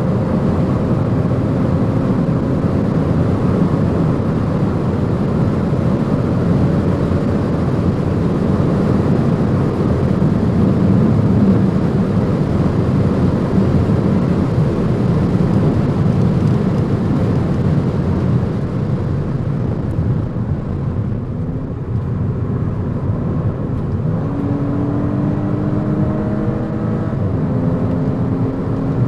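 Audi S5 Sportback driving at high autobahn speed: a dense rush of road and wind noise with the engine's hum underneath. Near the end the engine note climbs under acceleration, drops back at a gearshift, and climbs again.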